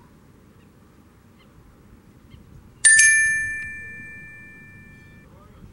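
A single bright bell-like chime sound effect for the pop-up subscribe graphic: struck sharply about three seconds in, then ringing out and fading over about two seconds. A faint low rumble runs underneath.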